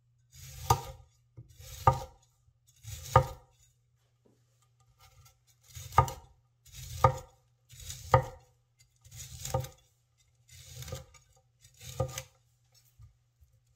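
A Chinese vegetable cleaver chops through broccoli onto a wooden cutting board, nine strokes in all. Each stroke is a short crunch through the stalk and florets, ending in a sharp knock of the blade on the wood. The first three come about a second apart, then there is a pause of a couple of seconds before six more at a steady pace.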